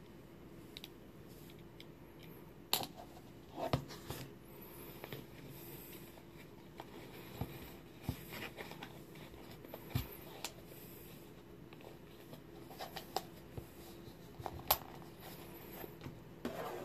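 Scattered small clicks and rubs of hands handling a pair of metal aviator sunglasses close to the microphone, over a faint steady hum.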